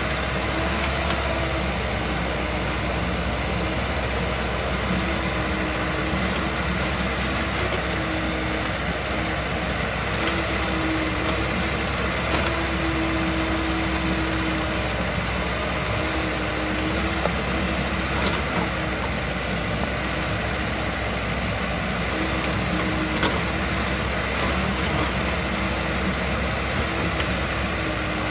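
Komatsu crawler excavator's diesel engine running steadily while it digs soil, with a hum that cuts in and out every few seconds and a few faint clicks.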